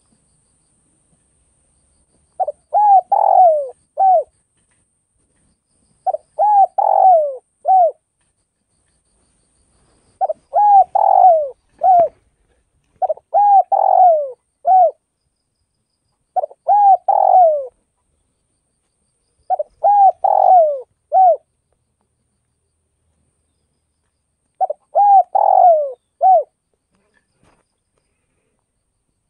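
Spotted dove cooing: seven phrases of several curved coo notes each, repeated every three to four seconds with pauses between.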